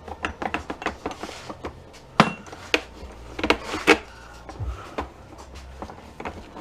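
Metal and plastic parts of a jump starter pack clinking and knocking as it is pulled apart by hand, with a sharp knock about two seconds in and a quick run of clicks near the middle.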